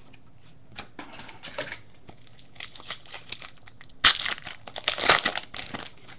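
Foil baseball card pack wrapper being crinkled and torn open, with scattered crackles that grow into a louder burst of crinkling a little after the middle.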